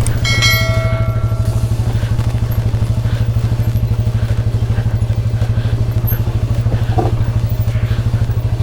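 Motorcycle engine running at a steady, even beat.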